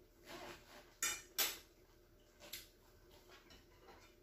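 A few light clinks of a metal fork against a frying pan: two close together about a second in and one more a second later.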